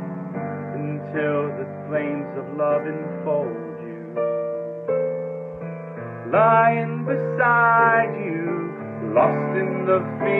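A man singing with piano accompaniment. About six seconds in his voice swells into louder, long held notes with vibrato.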